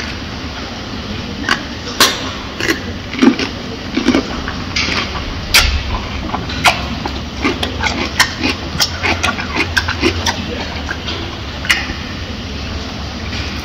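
Gorilla chewing and biting a cucumber: irregular wet crunches and mouth smacks, a few every second, over a steady low hum.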